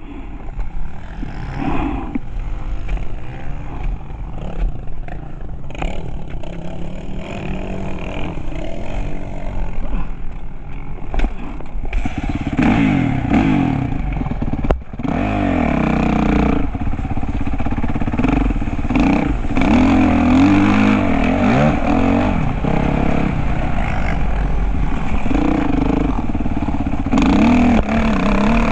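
Motocross dirt bike engine revving up and down as it rides, fainter at first and much louder from about halfway through, over a steady low rumble.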